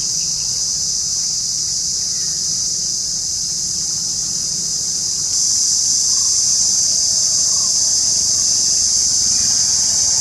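Cicada singing: a loud, continuous high-pitched buzz that steps up louder about halfway through.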